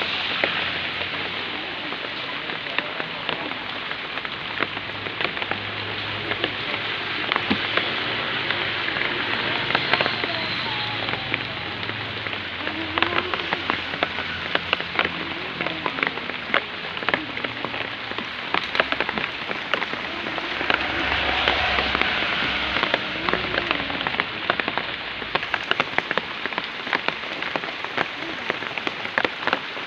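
Steady rain, with many sharp drops pattering on a nearby surface. Faint voices murmur underneath.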